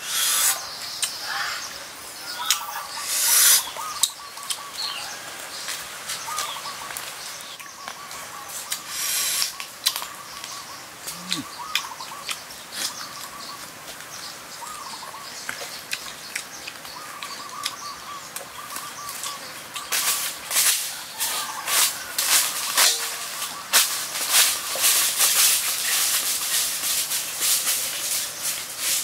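Scattered crisp crunches and rustles, thickening into steady crackling of dry leaf litter in the last third, over thin bird calls.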